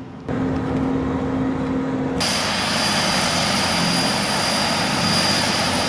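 Propeller aircraft's engines running steadily, a loud even noise with a fixed high whine, starting abruptly about two seconds in. Before that, a steady low hum.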